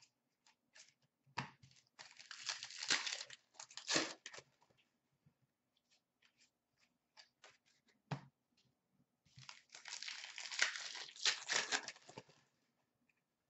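A hockey card pack wrapper is torn open and crinkled, twice, about a second and a half in and again about nine seconds in. Between the two, the cards give light clicks as they are handled.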